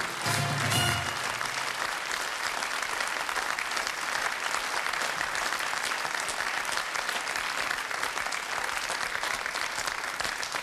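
Closing theme music ends about a second in, followed by steady studio audience applause.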